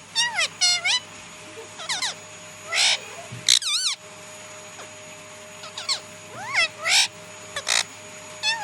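Pet parrots chirping and calling in quick, wavering bursts, with a pause of about two seconds near the middle.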